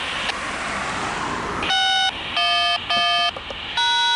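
Four short horn-like electronic tone blasts, each about half a second and cut on and off sharply, at changing pitches, after a hiss in the first second and a half.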